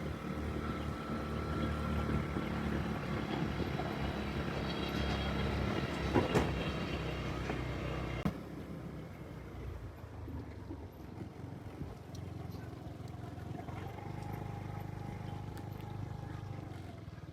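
Steady low rumble of a moving vehicle, with a sharp knock about six seconds in. A little after eight seconds the sound cuts abruptly to a quieter rumble, and later a steady hum joins in.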